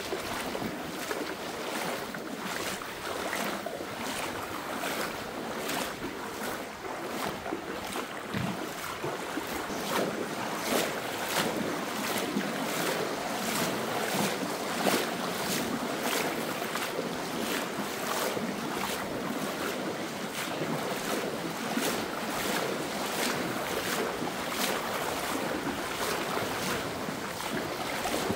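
Alcantara river water rushing through its gorge: a steady, even rush of flowing water.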